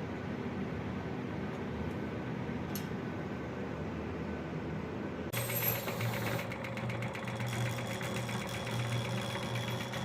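Steady machine hum in a workshop; about five seconds in, a small power tool starts running with a fast buzzing rattle.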